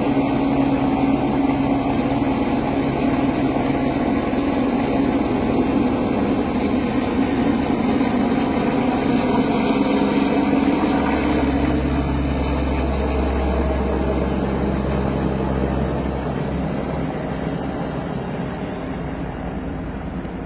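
Helicopter running, its rotor blades beating rapidly over a steady turbine tone, growing fainter over the last few seconds.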